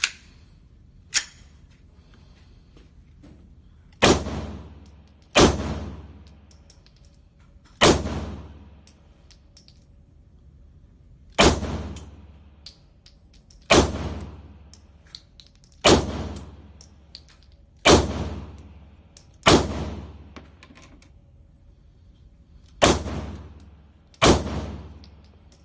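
Ten handgun shots fired one at a time, roughly one and a half to three and a half seconds apart, each a sharp crack with a short echoing tail. Two small sharp clicks come in the first second or so.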